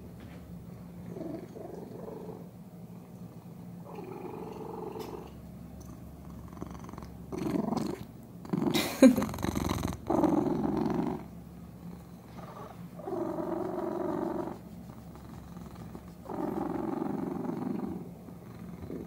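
Domestic cat purring very loudly and contentedly while its chin is scratched. The purr swells every few seconds with its breathing. A sharp knock comes a little before the middle.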